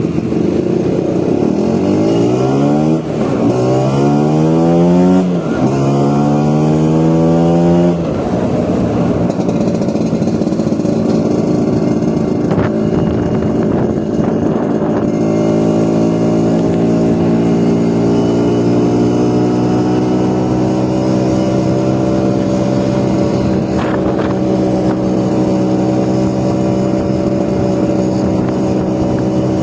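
Vespa scooter engine accelerating through the gears, its pitch rising three times with a drop at each shift over the first eight seconds, then running at a steady cruising speed.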